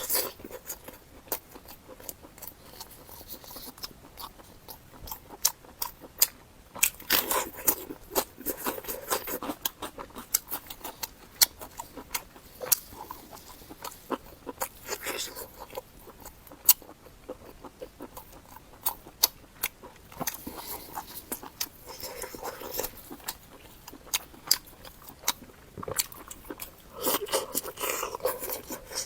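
A person chewing and biting food close to the microphone: irregular crunches and wet mouth clicks, with louder bouts of chewing several times.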